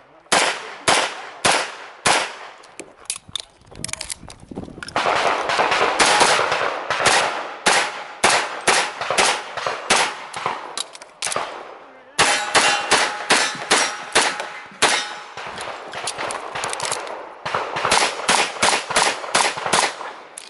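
Pistol shots fired in rapid strings, the strings broken by short gaps, typical of a practical-shooting stage shot against the clock.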